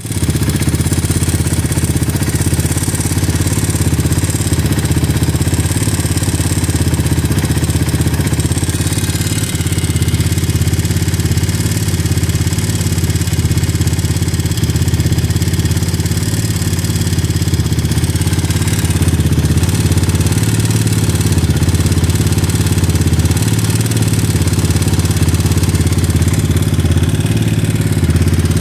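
Enduro motorcycle engine running at an unsteady idle, with a knocking clatter that the owner likens to valve tapping (valve clearances 0.06/0.08). The owner also reports crackling from the right side of the cylinder head whenever the revs rise.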